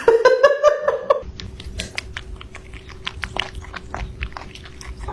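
A pet chewing noisily: a run of irregular crunchy clicks over a faint steady hum. It follows about a second of a short pitched, voice-like sound, which is the loudest part.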